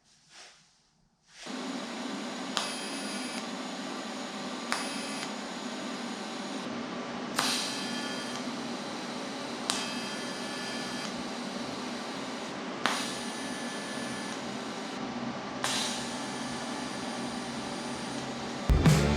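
A steady machine hum and hiss starts about a second and a half in and runs on evenly, with a short sharp click every two to three seconds. Music comes in near the end.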